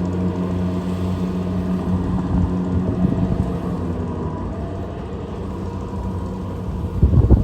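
Kubota DC688Q combine harvester's diesel engine running steadily while harvesting rice, easing slightly about halfway through, with a louder low rumble near the end.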